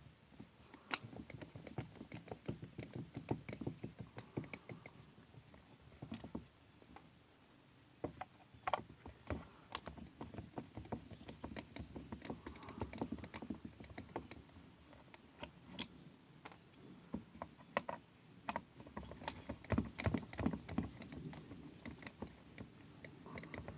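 A Phillips screwdriver backing screws out of the plastic back cover of an ATV instrument display module. It makes irregular small clicks, taps and scrapes as the tool turns and the plastic housing is handled.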